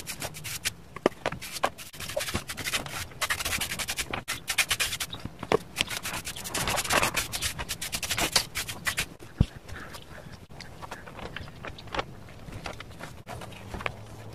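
Brush and rag rubbing stain into the rough surface of a cast-cement planter: repeated scratchy strokes, densest in the middle, with scattered small knocks and one sharp click about nine seconds in.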